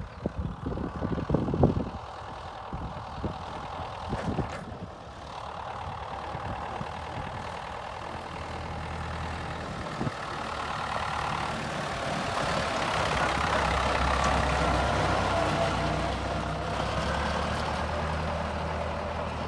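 Old David Brown tractor's engine running as the tractor drives up the track and past, growing louder to a peak about two-thirds of the way through, then easing off a little. A few low thumps on the microphone in the first couple of seconds.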